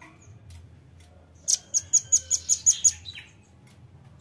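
Velvet-fronted nuthatch calling: a fast run of about eight sharp, high chips, starting about a second and a half in and lasting about a second and a half.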